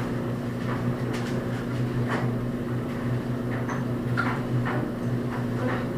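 Steady low electrical hum from an appliance or small motor, with a few faint clicks and rustles scattered through it.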